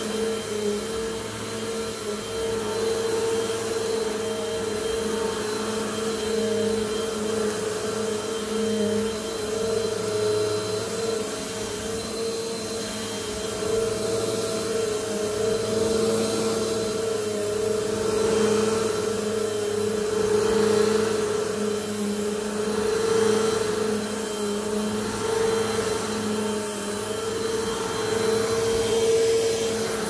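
Upright vacuum cleaner running steadily on carpet, its motor a constant hum under a rushing hiss. It grows louder and softer every few seconds as it is pushed back and forth.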